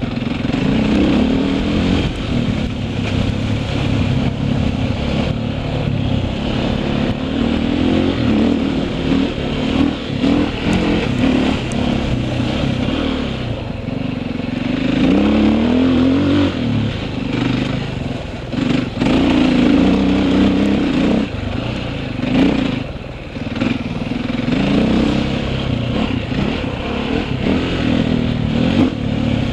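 KTM enduro motorcycle engine revving up and easing off again and again as it is ridden around a dirt motocross track, heard close up from on board. Its pitch rises and falls with the throttle, with brief lulls between bursts.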